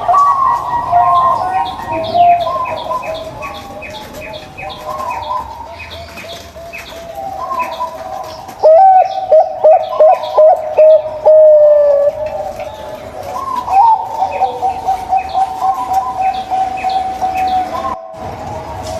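Several zebra doves (perkutut) cooing over one another in rippling, overlapping coos. A louder run of quick coo notes comes about nine seconds in, with fast high chirping behind.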